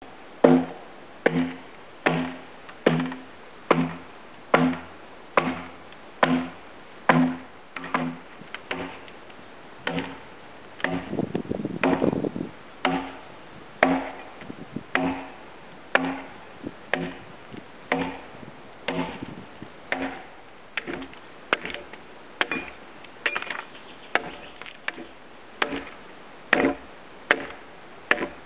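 Replica medieval axe chopping into timber, hewing a tenon, with blows landing about once a second. Each blow is a sharp knock with a short woody ring, and a quick flurry of lighter knocks comes around the middle.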